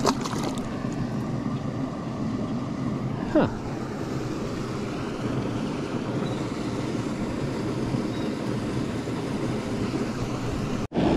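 Steady rush of flowing river water, with one short, sharp sound about three and a half seconds in.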